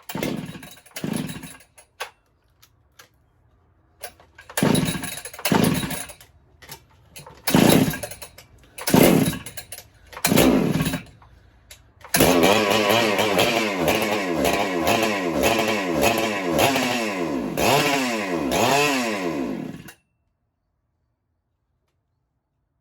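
Husqvarna 395XP two-stroke chainsaw being started. It fires in several short bursts that die away, then runs for about eight seconds with the throttle blipped up and down, then cuts off suddenly. The saw has a carburettor fault, which the owner reckons is a plugged low-speed jet.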